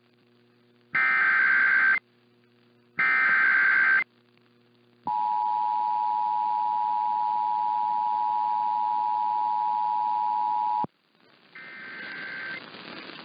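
Emergency Alert System activation: two SAME header data bursts, each about a second long and a second apart, then the two-tone attention signal (853 and 960 Hz together), held steady for about six seconds and cutting off sharply. After a short gap comes a noisy, crackling stretch with another data burst in it near the end.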